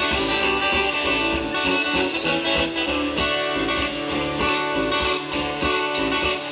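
A band playing an instrumental passage between verses of a song, led by strummed guitar over a steady beat.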